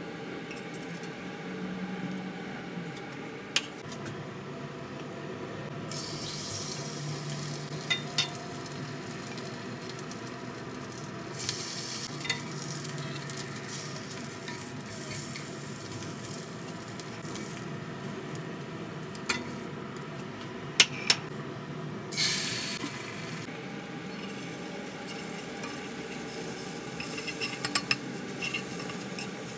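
Egg frying in oil in a nonstick wok, sizzling steadily and surging louder a few times, while a spatula scrapes and taps against the pan with scattered sharp clicks.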